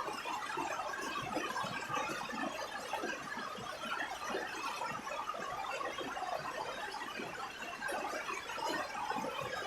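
Steady rain falling on a roof: many small drop impacts overlapping into an even patter with no pauses.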